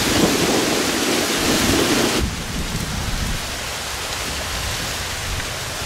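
Steady rain hissing, with low rumbling in the first two seconds; the sound drops abruptly about two seconds in to a softer, even rain.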